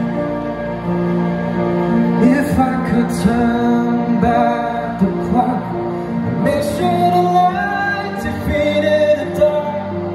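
Instrumental backing track of a slow pop ballad playing through PA speakers, with sustained chords and melody and a few sharp accents, while the singer is not singing.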